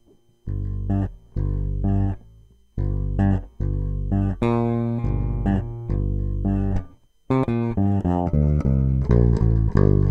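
Outro music: a run of separate, sharply struck string-instrument notes that ring and fade, ending on a long held low note.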